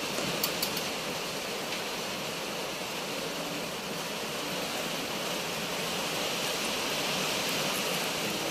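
Milk being poured in a stream into a pot of semolina soup (hssoua), over a steady hiss of rain.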